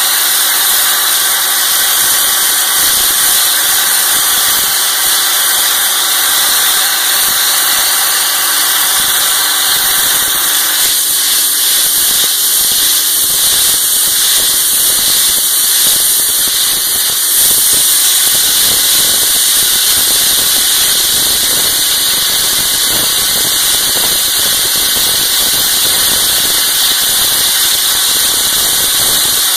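Slurry (wet abrasive) blasting stripping paint from a concrete wall: a steady, loud hiss of compressed air and abrasive slurry, with an engine running steadily underneath.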